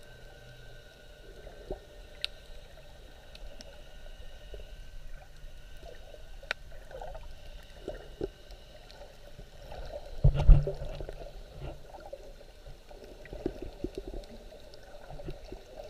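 Underwater sound picked up by a submerged camera: muffled low rumble of water with scattered faint clicks and crackles and a few faint steady high tones. About ten seconds in there is a louder low rumbling surge of water lasting about half a second.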